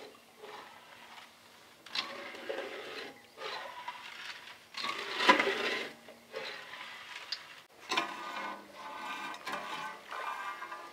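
A flat steel spatula stirring and scraping wet sugar and water around a metal kadai, in separate swishing, scraping strokes with a few sharp clinks against the pan, the loudest about halfway through. The sugar is being dissolved to make chasni, the sugar syrup for gulab jamun.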